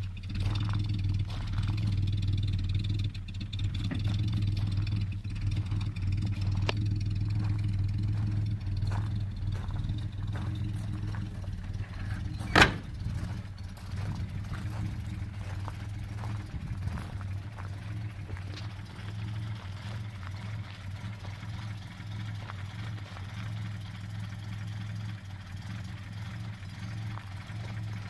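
1938 Morris 18/6's six-cylinder engine, a Series 3 unit, idling steadily. About halfway through, a car door shuts with a single loud slam.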